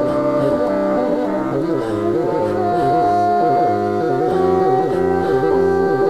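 Bassoon music with electronic effects and sound processing: a repeating low figure pulses under long held higher notes, and a new high note comes in a little over two seconds in.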